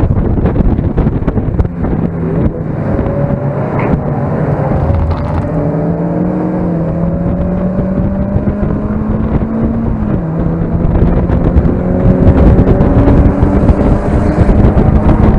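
Mazda MX-5's four-cylinder engine accelerating on track, its pitch rising slowly, with an upshift about ten seconds in, under heavy wind buffeting on the microphone.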